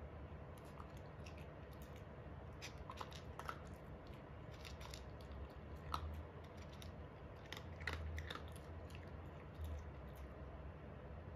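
A Japanese Spitz chewing dry kibble from a bowl, with irregular crisp crunches.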